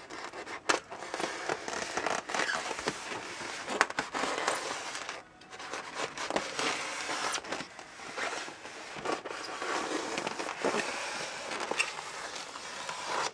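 Polystyrene foam packing trays being handled and pulled apart: foam rubbing and scraping against foam, with many small clicks, pausing briefly about five seconds in.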